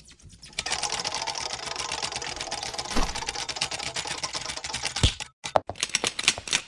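A fast run of small clicks and rattles, as of a small keypad mobile phone being handled and taken apart at a repair bench, with a sharper knock about three seconds in and another about five seconds in, thinning to scattered clicks near the end.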